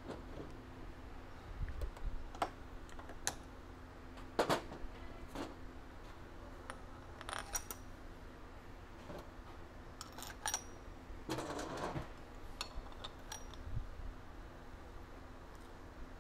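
Scattered metallic clicks and clinks, a few with a short ring, the loudest about four and a half seconds in, and a brief scraping rustle around twelve seconds: tools and headset parts being handled while the upper headset race is lined up for pressing into the bike's head tube. A low steady hum runs underneath.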